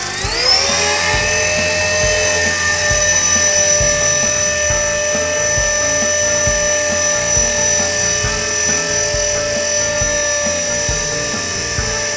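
Blade 400 electric RC helicopter's motor and rotor spooling up sharply about half a second in, then holding a steady high-pitched whine at flying speed as it lifts off.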